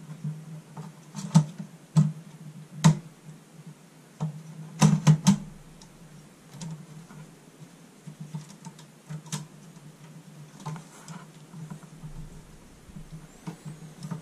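Clicks and light knocks of plastic and sheet-metal parts being handled as a case fan is fitted into a computer case. A cluster of sharper knocks comes between about one and five seconds in, then lighter scattered ticks.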